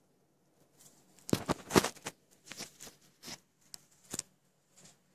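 Irregular rustling and clicking handling noise from the camera being moved, with a dense cluster about a second and a half in and a few scattered clicks after, over a faint steady hum.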